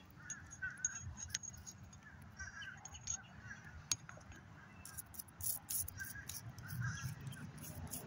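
Birds calling repeatedly in short calls. About five seconds in, scratchy scrubbing and clicks as a toothbrush works over a metal shoe buckle.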